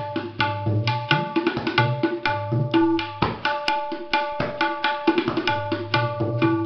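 Tabla played solo at a fast, even pace: crisp strokes on the tuned right-hand drum ring at one steady pitch, mixed with deep resonant bass strokes from the left-hand drum. The bols are of a Delhi gharana kaida being worked through its variations.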